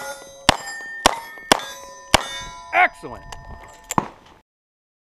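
Revolver shots fired in quick succession, five about half a second apart. Each is followed by the ringing clang of a hit steel plate. One more shot and ring comes about four seconds in.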